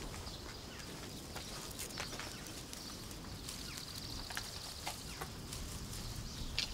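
Countryside ambience with scattered light clicks and knocks as a wicker basket is handled, the sharpest one near the end. A short, rapid high trill from an animal sounds about three and a half seconds in.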